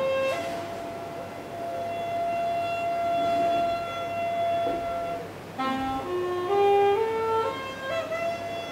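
Music from a single melodic instrument: quick rising runs of notes, each ending on a long held note, the first held for about five seconds and a second run starting about five and a half seconds in.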